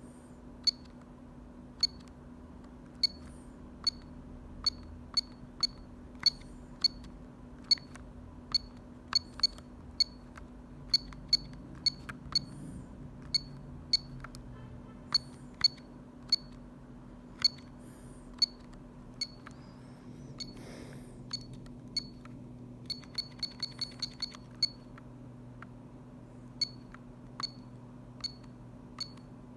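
Short, high key beeps from a Telecom Italia Tech New Master telephone as its buttons are pressed, coming irregularly about one or two a second, with a quick run of about six about three quarters of the way through. A faint steady hum runs underneath.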